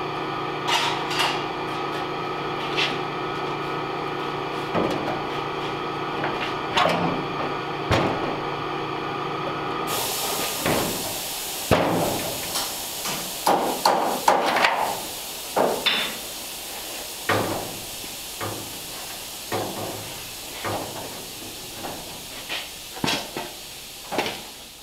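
Irregular knocks and clanks of metal on metal from work on the body panels of a 1934 Ford Cabriolet, over a steady hum. About ten seconds in, a steady hiss joins and the knocks come thicker.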